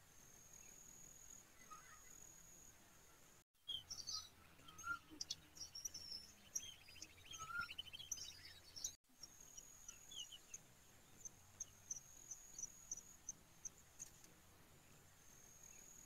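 Faint, steady high-pitched insect trill that breaks into short even pips for a while. In the middle, cut in for about five seconds, is a busier stretch of sharp chirps and clicks with bird calls.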